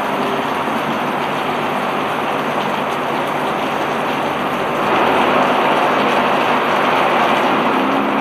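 Steady rushing noise of heavy rain and running water on a hillside, swelling louder about five seconds in.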